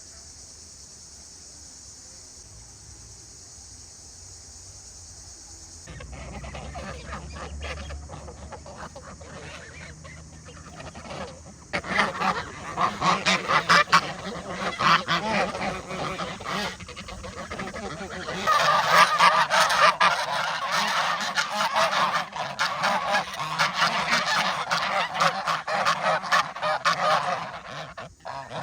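A flock of geese honking: a faint high hiss at first, the honking starting about six seconds in and growing into a loud, dense clamour from about twelve seconds on.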